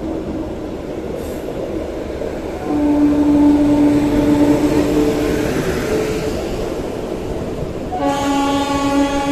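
Indian Railways electric locomotive horn sounding two long blasts over the rumble of moving trains. Each blast is a chord of several tones: the first starts about three seconds in and lasts about three seconds, and the second starts about a second before the end and is still sounding at the end.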